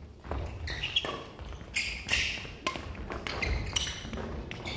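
Badminton doubles rally: a quick run of sharp racket hits on the shuttlecock, several less than a second apart, with short squeaks of shoes on the court floor.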